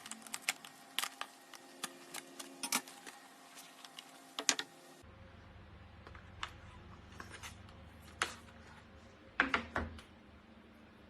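Irregular clicks and taps of a Samsung Galaxy Watch 3 box and its packaging being handled and opened, with a quick cluster of sharper clicks near the end.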